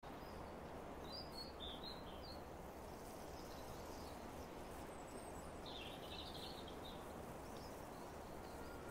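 Faint outdoor ambience: a steady hiss of background noise with small birds chirping, a few short calls about a second in and a louder cluster around six seconds.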